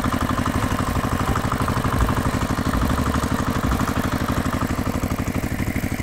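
Engine-idling sound effect: an engine ticking over with a fast, even pulse and a steady pitch.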